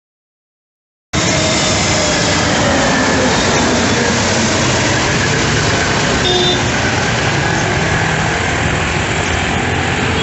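About a second of silence, then the steady, loud noise of an Airbus A320neo's jet engines, with a faint whine that slowly falls in pitch.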